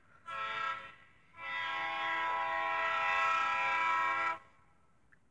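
Diesel locomotive air horn, played back through a TV speaker: a short blast, then a long blast of about three seconds, closing out the long-long-short-long grade-crossing signal.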